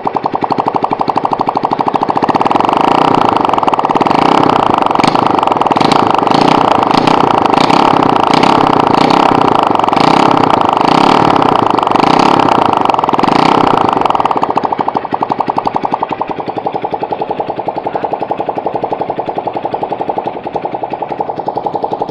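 Honda C70 single-cylinder four-stroke engine, built up with a Honda GL cylinder block and head, running with a fast, even pulse. It is revved up about two seconds in, held there, and drops back to a lower idle at about fourteen seconds.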